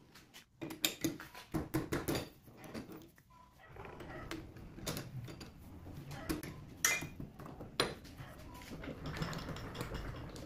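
Sharp metallic clinks and clanks as turned steel parts are handled and set into a lathe's four-jaw chuck. They come thick in the first few seconds, then as scattered knocks over a low steady hum that starts about three and a half seconds in.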